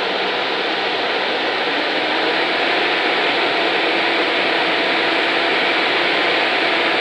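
Caterpillar TL642C telehandler's diesel engine running steadily while it drives the hydraulics to raise the telescopic boom, a little louder about two seconds in.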